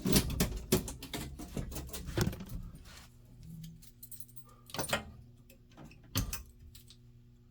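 A set of keys jangling and clicking as they are handled, busiest over the first two or three seconds, then two sharper clicks later on. A faint steady hum runs underneath.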